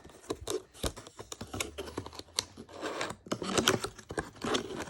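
Hands working at a closed cardboard keyboard box that won't open: irregular clicks, taps and scrapes, with a burst of rustling and scraping near the end.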